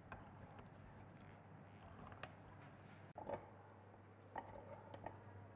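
Near silence over a low steady hum, with a few faint clicks and light knocks from gloved hands handling a restored bench vise.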